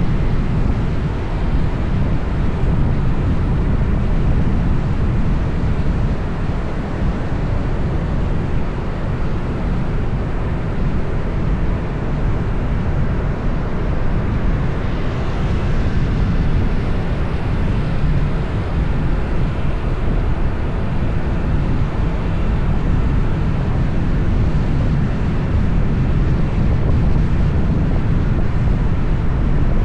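Steady rumble of road traffic and wind on the microphone, heaviest in the low end, with no separate events.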